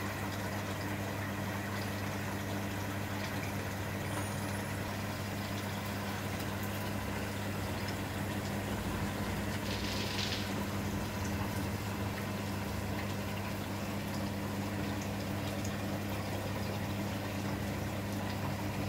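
Steady electric hum of an aquarium pump running, with a constant watery hiss beneath it and a brief higher hiss about ten seconds in.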